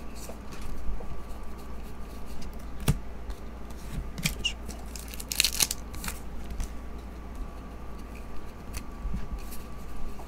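A 2023 Topps Star Wars hobby pack's wrapper torn open by hand, a short ripping burst about halfway through. Around it are light clicks and rustles of trading cards being handled.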